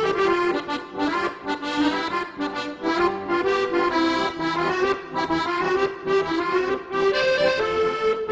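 Instrumental background music, a melody over chords with the notes changing quickly in an even rhythm.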